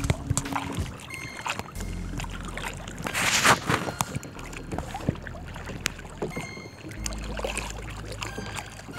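Choppy river water slapping against the hull of a small boat, with a louder surge of water about three and a half seconds in.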